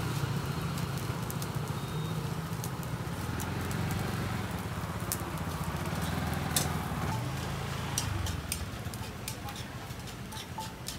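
A small engine, most likely a motor scooter's, running with a steady low hum that briefly rises and falls in pitch about seven seconds in. Scattered crackling clicks join from about halfway through, fitting fat crackling on the charcoal grill under salt-crusted fish.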